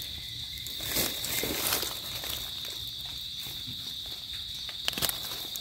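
Steady high-pitched insect chorus, with rustling of dry leaves and undergrowth as a person steps and reaches down about a second in, and a short sharp click near the end.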